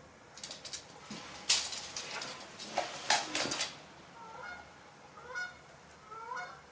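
Steel tape measure being handled and repositioned against a plywood sled: a run of clicks, taps and short scrapes, then three short squeaks near the end.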